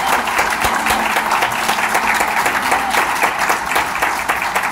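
A congregation applauding: a dense, steady clatter of many hands clapping.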